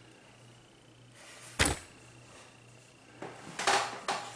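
A single sharp knock about a second and a half in, then a few rustling handling noises near the end, over a low steady electrical hum.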